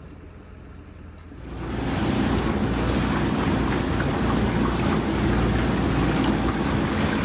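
A dinghy's outboard motor running steadily under way, with water rushing past the hull and wind on the microphone; it fades up about a second and a half in, after a quieter start.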